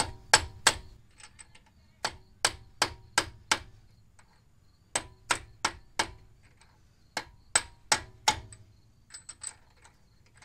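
Rubber mallet hammering the outer end of a CV axle in the wheel hub. The blows come in runs of three to five, about a third of a second apart, with short pauses and a few lighter taps between, and each blow has a short metallic ring. This is driving the axle shaft back through the hub, which goes a little further with each run of blows.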